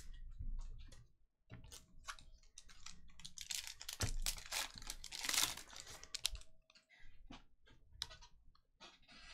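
A stack of glossy foil basketball trading cards being handled and thumbed through one at a time: a string of light clicks and rustles, busiest and loudest about halfway through.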